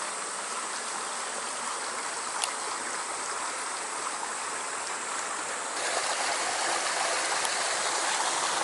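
Stream water rushing over rocks in a steady hiss, growing louder about six seconds in, with a couple of faint clicks.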